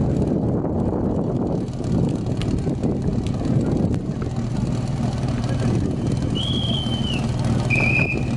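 A small engine running steadily, most likely the team's portable fire pump idling at the base. It hums low and even, with a couple of short high whistle-like tones near the end.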